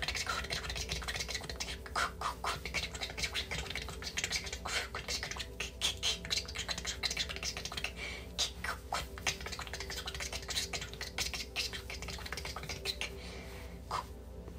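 Rapid, irregular tongue clicks and clicking mouth sounds with a few short vocal snippets: light language being vocalised. A faint steady hum lies under it.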